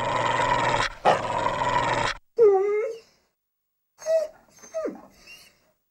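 Cartoon dog of the Dygra Films logo growling in two long, rough snarls, the second starting about a second in. Then comes a short bark, and near the end a few brief whimpering yips, one of them sliding down in pitch.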